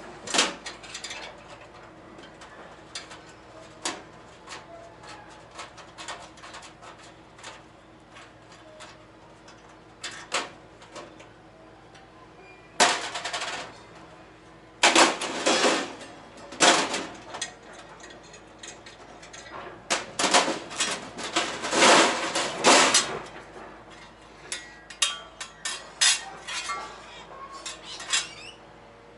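Metal clanking and rattling as metal parts and tools are handled: scattered sharp knocks, with louder clattering spells about halfway through and again about two-thirds of the way in.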